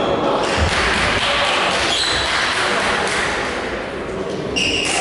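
Volleyball match noise in a sports hall: a mix of players' and spectators' voices and court sounds. A short whistle blast comes near the end.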